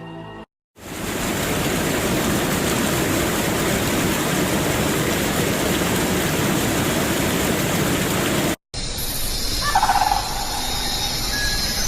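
Rushing water, a steady dense roar like a waterfall or swollen stream, which cuts off abruptly about eight and a half seconds in. It gives way to a softer hiss with steady high tones and a few short calls.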